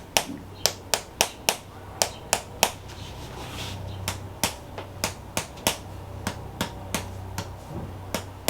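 Rapid, evenly spaced percussive strikes, about three a second, as the shoulder is worked to loosen the joint. The strikes pause briefly a few seconds in, then resume.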